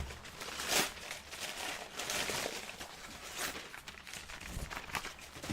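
Rustling of packaging being handled, with a few light knocks.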